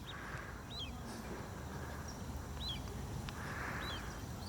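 Birds giving short, high chirps that slide downward, four times at irregular intervals, over a steady low background rumble.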